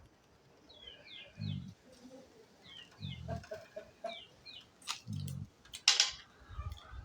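Dog snoring in its sleep: three short, low snores about two seconds apart. Birds chirp between the snores, and a short loud hissing noise comes about six seconds in.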